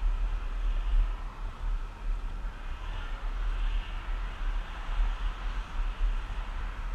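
Wind buffeting the microphone of a camera moving along a path: an uneven low rumble that rises and falls in gusts, over a steady hiss.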